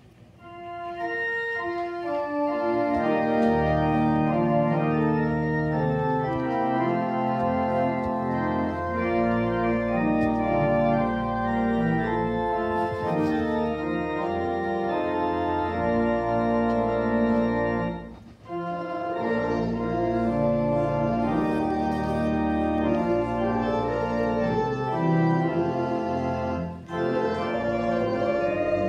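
Church organ playing held chords over deep bass notes, coming in about a second in, with a brief break a little past the middle.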